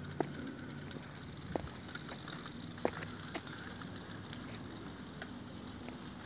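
Bicycle with an added chain-driven regenerative braking unit rolling along, its chain and drivetrain rattling, with about six sharp clicks in the first three and a half seconds and fainter ones after.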